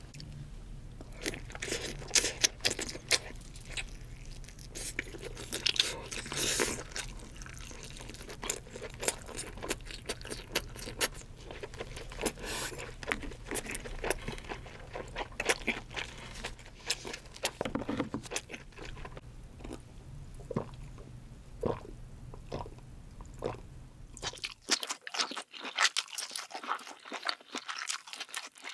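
Close-miked eating of king crab legs: crunching, biting and chewing, with many sharp crackles. A low steady hum under the first part cuts off abruptly near the end.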